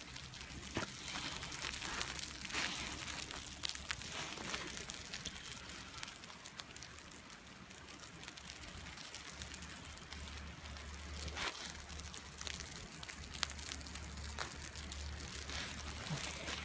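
Wind noise and a low rumble on a phone's microphone on an open chairlift, with scattered crackles where a nylon jacket rubs against the phone.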